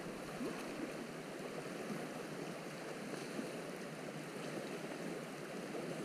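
Steady rush of flowing river water, an even wash with no breaks.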